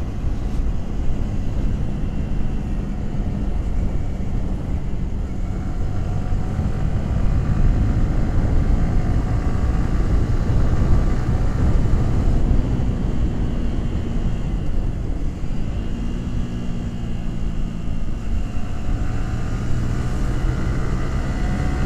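Yamaha R15 V3's 155 cc single-cylinder engine and exhaust running steadily under way, its pitch shifting a little now and then, over heavy wind rumble on the microphone.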